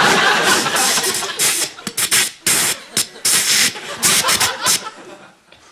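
Mouth-made sound effects into a microphone: a string of short, sharp hisses, about two a second, growing fainter near the end.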